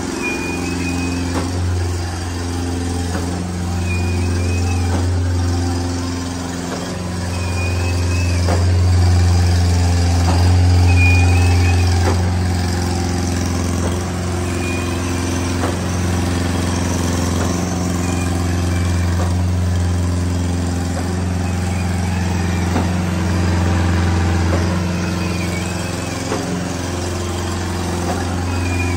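Schwing SP305 trailer concrete pump running steadily under a hydraulic pressure test: its diesel engine hums low and swells and eases in load every few seconds. A faint short chirp repeats about every three and a half seconds.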